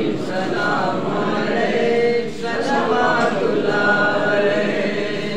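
A group of voices chanting a religious recitation together in unison, without pause.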